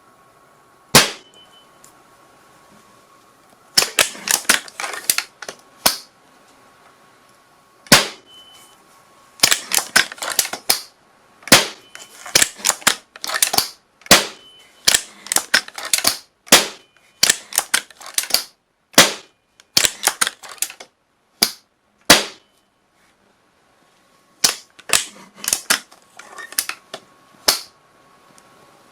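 Gunshots: single sharp shots and rapid bursts of gunfire, several shots a second in the bursts, with a short dead-silent gap between clips.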